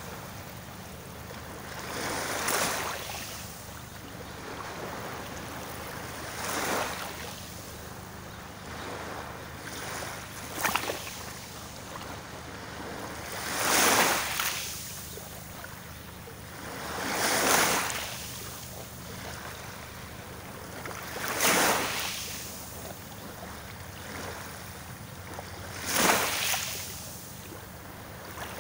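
Small waves washing onto a beach, each wash swelling up and fading about every four seconds over a steady low surf noise, with a couple of sharper splashes about ten seconds in.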